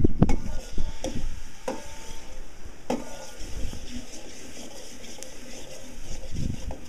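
Metal spatula scraping and clinking against a metal pan as okra is stir-fried, over a steady sizzle. The sharpest clinks, a few with a short metallic ring, come in the first three seconds.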